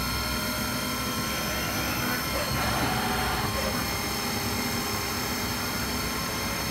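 CNC milling machine running: a steady hum with several constant high whining tones over it, unchanging throughout.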